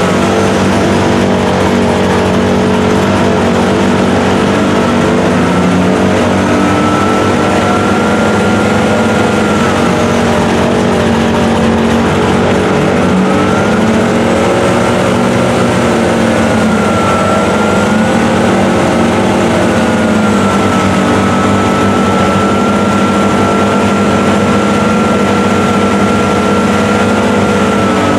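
Dodge Ram pickup's engine held at high revs, its pitch rising and falling, with a high whine riding above it, as the truck sits stuck in deep mud.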